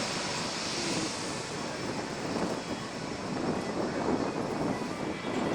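Steady rushing noise of an airliner's engines, holding fairly even throughout.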